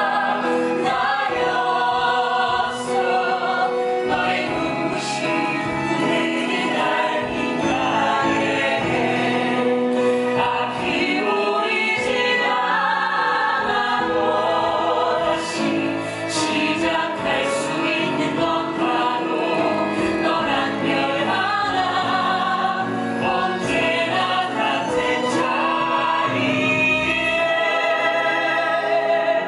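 Musical theatre cast singing a song together, several voices in harmony with instrumental accompaniment, loud and continuous.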